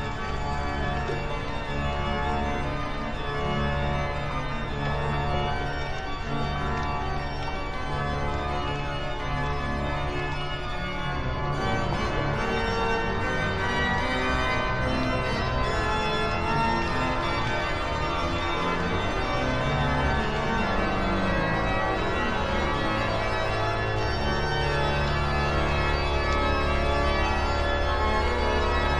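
Organ music: slow, held chords over deep bass notes that change every few seconds.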